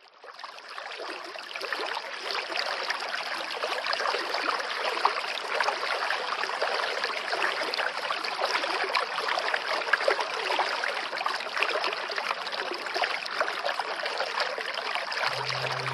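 Flowing water of a stream, a steady rushing babble that fades in over the first second or two. A low steady hum comes in near the end.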